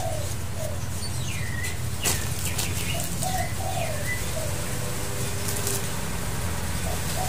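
Birds calling in the background, a few short chirps and coos, over a steady low hum. A single sharp click about two seconds in comes from the plastic phone mount being handled.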